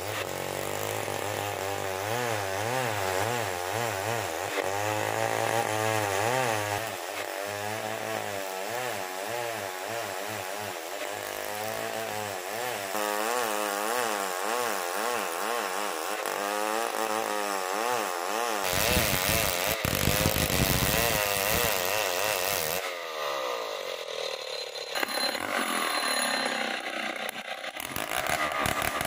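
Old two-stroke chainsaw running while ripping hard marsawa batu timber lengthwise into beams. Its engine note swings up and down in pitch about once a second, then turns harsher and louder about two-thirds of the way through, and the pitch falls away after that.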